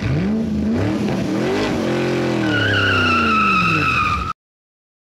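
Intro sound effect of a car engine revving up and down, joined about halfway through by squealing tyres; it cuts off suddenly about four seconds in.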